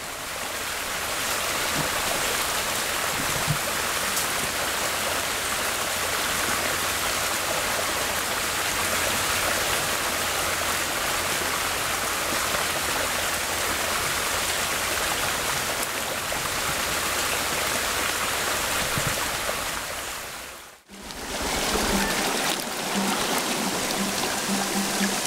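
Flowing stream water, a steady rushing noise; it drops out for a moment about 21 seconds in and comes straight back.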